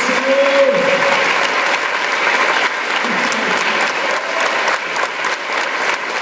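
A congregation applauding steadily, a dense patter of many hands clapping, with a voice calling out briefly near the start and again about three seconds in.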